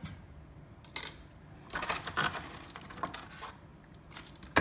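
Clear plastic packaging, a plastic bag and a blister tray, crinkling and crackling as it is handled, in irregular bursts with a sharp snap near the end.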